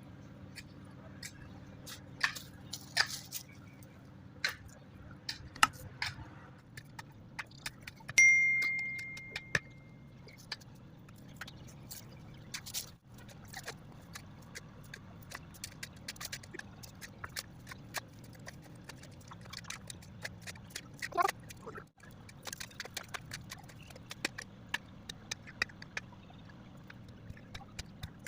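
Scattered knocks and clicks over a low steady hum, with one sharp metallic clang about eight seconds in that rings for about two seconds.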